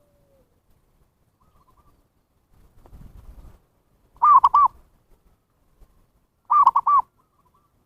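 Zebra dove (perkutut) cooing: two short bursts of quick, arched coo notes a couple of seconds apart, with a few faint notes before them. A faint low rumble sits between the bursts.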